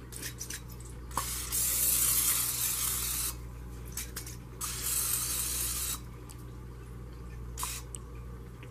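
Olive oil cooking spray hissing in two sprays of about a second and a half each, a little over a second apart.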